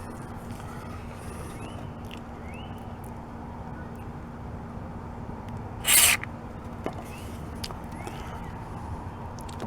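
One short burst of aerosol lubricant sprayed from a can onto a car door hinge, a hiss lasting under half a second about six seconds in, over a steady low background hum.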